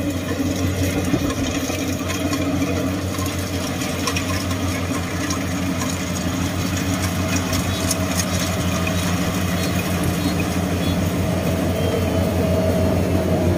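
Rice combine harvester's engine running steadily with a low, even throb, growing gradually louder toward the end as the machine draws closer.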